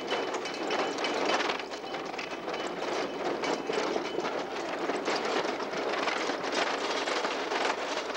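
Miniature tourist train running along its narrow track, heard from an open riding car: a steady rumble and clatter of wheels on rail with many small clicks. A faint high-pitched tone runs through the first half.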